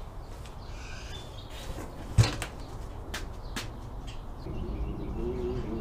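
A plastic trash can being moved and set down, with one sharp knock about two seconds in, then a few lighter clicks and rustling.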